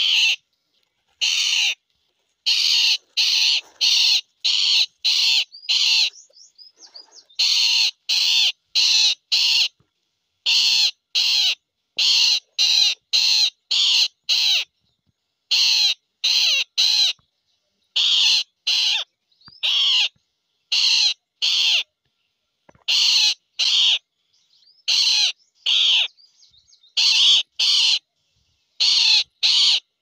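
Indian roller giving loud, harsh calls over and over, each about half a second long, mostly in quick runs of two to five with short pauses between, and faint short chirps in some of the pauses.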